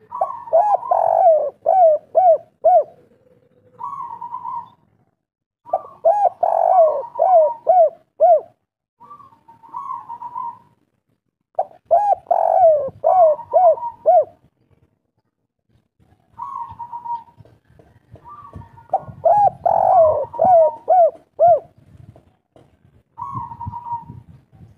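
Spotted dove cooing its local 'kuk 3' song: four loud phrases, each a quick run of rising-and-falling coos, with short softer coos between them.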